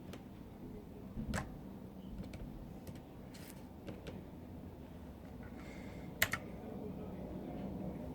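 A few scattered key presses on a retro typewriter-style keyboard, single sharp clicks a second or so apart, the loudest a quick double click about six seconds in.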